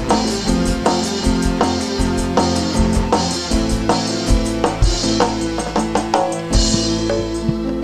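Instrumental dangdut music played live: sustained keyboard tones over a steady drum beat of about two strokes a second.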